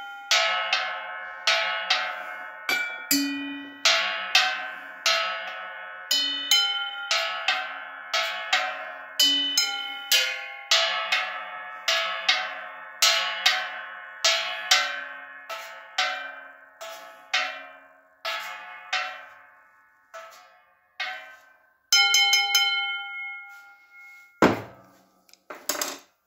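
Round metal milk-can lids struck one after another with a small mallet, each giving a bright ringing note, several different pitches played as a slow tune at about one to two strikes a second. Near the end one strike rings out longer, followed by two dull knocks.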